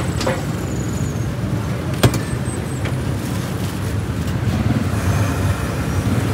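Steady low rumble of street traffic and idling motor vehicles, with two sharp knocks, one right at the start and one about two seconds in.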